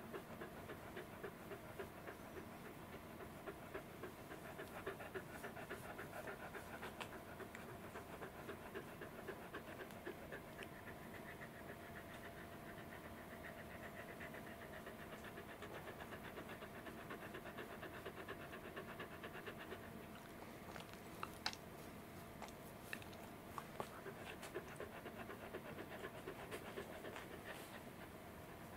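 Welsh corgi panting rapidly and steadily with its mouth open, a sign of warmth that the owner puts down to its thick, shaggy coat. The panting eases in the last several seconds, among a few sharp clicks.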